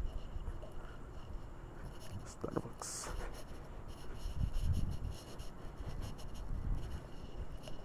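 Handling noise from a hand-held phone carried while walking: scratching and rubbing on the microphone over a low rumble, with a brief louder rustle about three seconds in.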